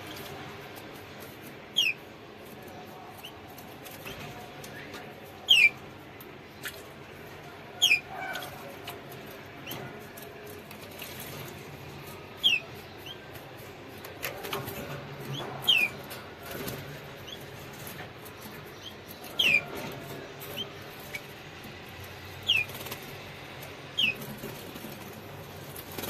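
Canary bathing in a shallow water dish, fluttering its wings and splashing, with short chirps that slide down in pitch about every few seconds, nine or so in all.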